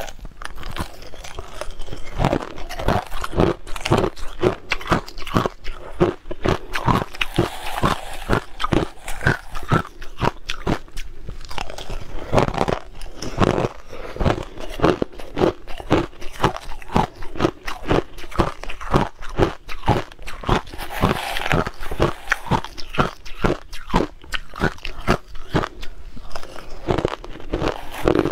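Crushed ice being bitten and chewed close to the microphone: a continuous run of sharp, irregular crunches and cracks, several a second.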